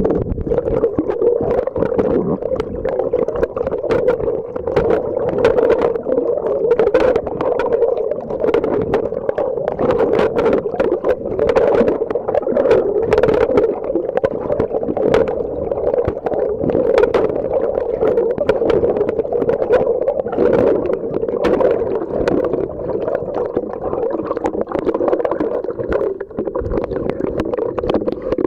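Muffled underwater sound picked up by a submerged camera: a steady hum with frequent sharp clicks and crackles throughout.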